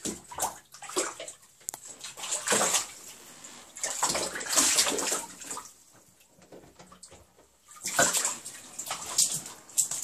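Bobcats wading and pawing in shallow bathtub water, splashing and sloshing in irregular bursts with short pauses between.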